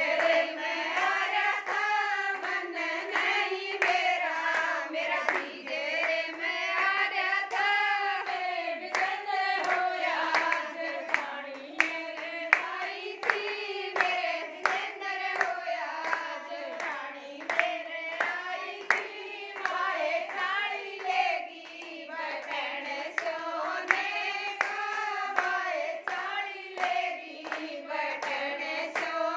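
Group of women singing a Haryanvi jachcha geet, the folk song sung to celebrate a newborn, clapping their hands in steady time with the tune.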